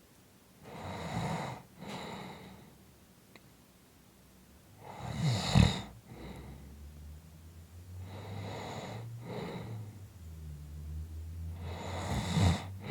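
A person snoring in slow, regular breaths, with louder rattling snores about five and a half seconds in and again near the end.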